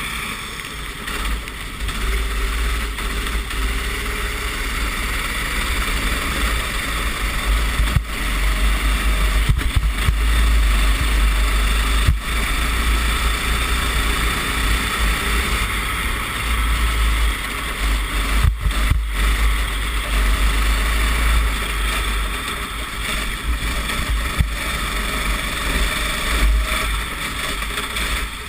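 Racing kart engine running hard at race pace, heard from an onboard camera, with heavy wind buffeting the microphone. The sound drops out briefly twice a little past the middle.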